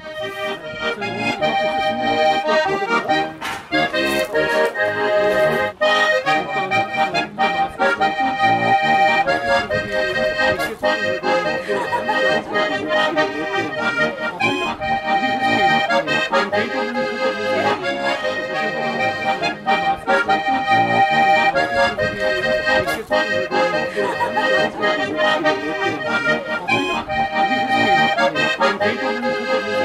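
Accordion playing a traditional folk tune, a melody over a steady rhythmic accompaniment.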